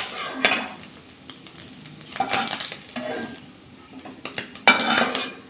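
Metal spoon scraping and scooping pieces of scrambled egg off a non-stick wok in several separate strokes, over a light sizzle of hot oil.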